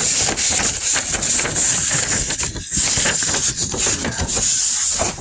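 A paper poster rustling and rubbing against cardboard as it is unrolled and pressed flat by hand, a dense run of irregular scrapes and crinkles.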